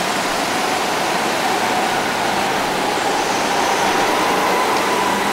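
Go-karts lapping an indoor concrete track, heard as a steady, even rush of noise with a faint held tone through it.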